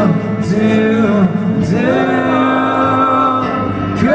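Live acoustic rock music: sung vocals held and gliding over acoustic guitar.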